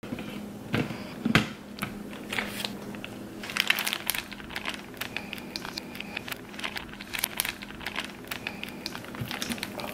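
Clear plastic food bag crinkling and rustling as it is handled and tipped, with a thump about a second in.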